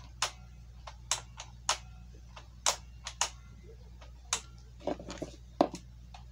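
Plastic Lego pieces clicking and clacking as a set is put together: a run of irregular sharp clicks, several close together in the second half.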